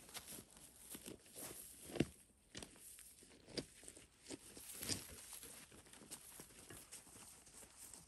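Footsteps of a person and a dog through dry grass and leaf litter: faint, irregular rustling and crunching, with a sharper crack about two seconds in.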